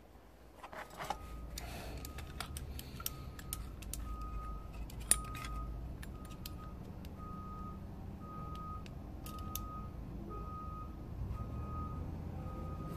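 Clicks and taps of a digital caliper with a headspace comparator being closed on a brass rifle case, the sharpest about five seconds in. Underneath runs a steady low engine rumble, and a reversing alarm beeps about twice a second from a few seconds in.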